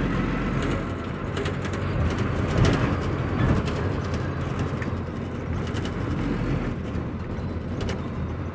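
Inside a moving bus: the diesel engine's low drone and road noise, with occasional short rattles.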